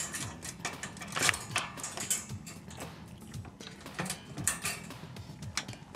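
Irregular light metallic clicks and rattles of a wire pet cage as a kitten scrambles and bats at a cat-teaser toy inside it.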